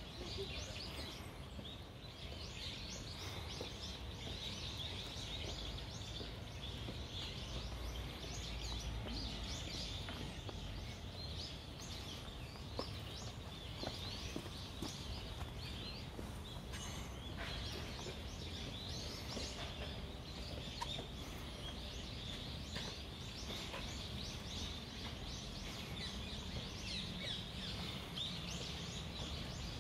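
Many small birds chirping in a dense, continuous chatter, over a low steady rumble of outdoor background noise.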